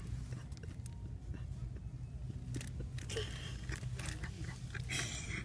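Crinkling and rustling of plastic-wrapped paper towel packs being shifted and handled, with scattered clicks and a denser stretch of rustling about three seconds in, over a steady low hum.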